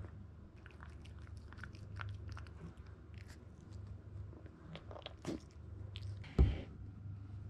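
Toy poodle puppy chewing and crunching the last of its dog food, with small clicks scattered through. A lesser knock comes a little after five seconds in, and one loud, short thump follows about six and a half seconds in.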